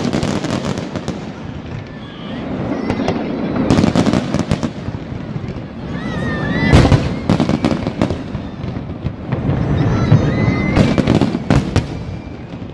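Fireworks display: aerial shells bursting in rapid volleys of sharp bangs and crackle, loudest about four, seven and eleven seconds in.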